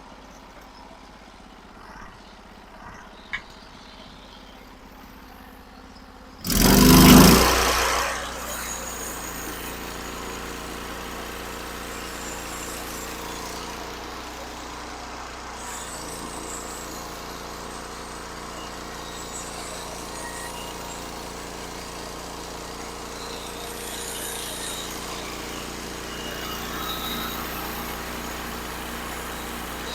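A Norwood HD36 portable sawmill's engine starts about a third of the way in with a brief loud burst, then settles and runs steadily. Before that there is only a low hum and a couple of faint clicks.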